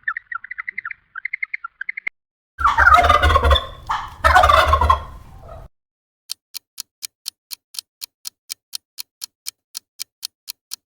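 A baby penguin's rapid, chirpy honking calls for about the first two seconds. Then a turkey gobbles twice, loudly. Then a steady clock-like ticking at about five ticks a second.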